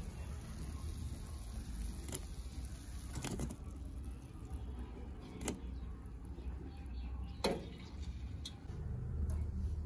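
A perforated steel ladle knocking and clinking against a steel bowl about four times as fried gulab jamuns are tipped into sugar syrup, over a steady low rumble.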